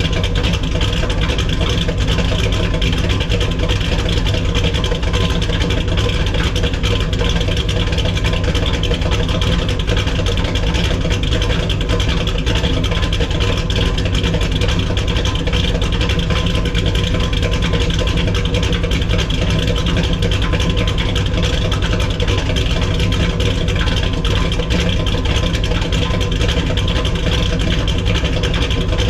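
1970 Dodge Challenger's 440 Six Pack V8, a big-block with three two-barrel carburettors, idling steadily through its exhaust while it warms up after a cold start.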